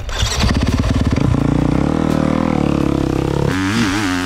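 Four-stroke 450cc motocross bike engine revving as the bike is ridden, its pitch rising and falling with the throttle. The pitch drops sharply about three and a half seconds in, then holds steady.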